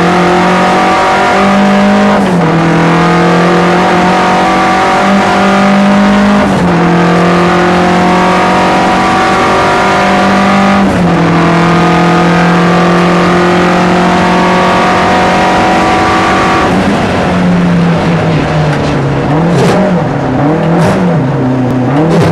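Saab 900 race car's turbocharged four-cylinder engine, heard from inside the cabin, running hard under full throttle. It shifts up three times, each a sudden drop in pitch, about two, six and eleven seconds in. From about seventeen seconds in the engine note falls and then swings up and down repeatedly as the car slows and shifts down for a corner.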